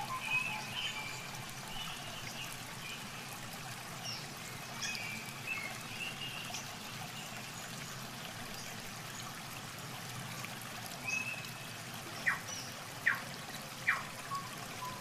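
Water splashing and trickling as a fish is released over the side of a boat, with three sharp splashes near the end.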